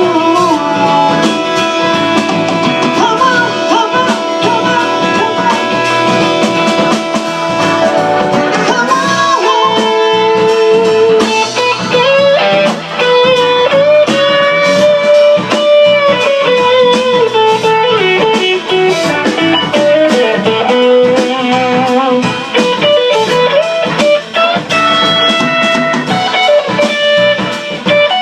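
Live band playing a blues instrumental. An electric guitar takes the lead melody with bent, sliding notes.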